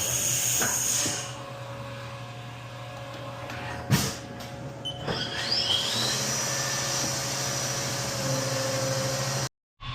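CNC milling machine starting its program: a burst of hiss, a sharp knock about four seconds in, then the spindle spinning up with a rising whine and running steadily over the machine's hum. The sound cuts out briefly near the end.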